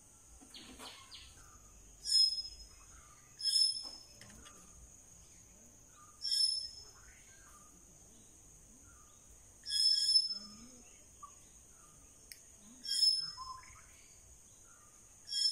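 Short, high-pitched chirping animal calls, six in all, repeated every three seconds or so, over a steady high insect drone.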